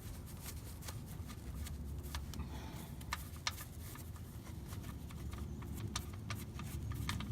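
Faint handling noise from hands and gloves working at the drain plug: rustling with scattered light clicks and taps, over a low steady rumble.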